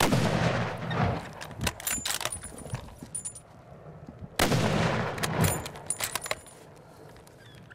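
Two shots from a slug-loaded shotgun about four and a half seconds apart, each ringing out over about a second, followed by a run of sharp metallic clicks and clatter.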